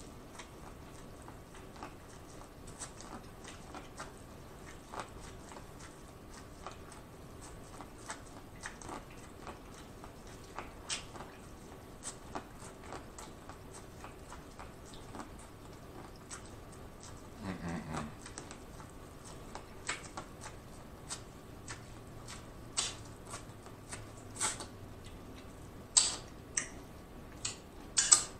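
Corn on the cob being eaten: kernels bitten off the cob and chewed, with many small wet clicks and mouth smacks that grow louder and more frequent in the last third. A short hum falling in pitch comes about eighteen seconds in.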